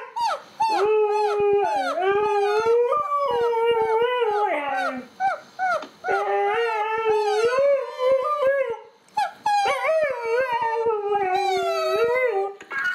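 Siberian husky howling in a run of long, wavering, yodel-like calls that rise and fall in pitch, broken by short pauses.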